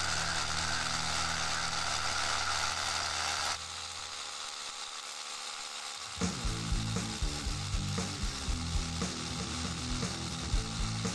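Doliz BD720 cordless rotary hammer in hammer-drill mode, driving a 12 mm bit into solid stone. A steady hissing grind, then a quieter stretch, then about six seconds in a rougher, uneven pounding as the bit bites into the rock.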